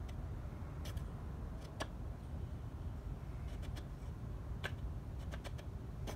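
Short, scattered clicks and scratches of a wooden marking gauge being set against a wood block, its sharpened screw-point cutter scribing a line into the wood, over a steady low rumble.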